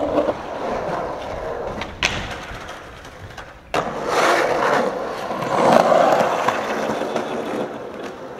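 Skateboard wheels rolling on pavement, with one sharp clack of the board about two seconds in; the rolling cuts off abruptly and comes back louder just before four seconds in.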